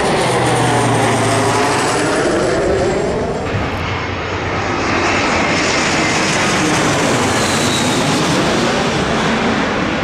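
Twin-engine jet airliner passing low overhead on final approach to land, its engines loud and steady with a faint high whine that slowly falls in pitch.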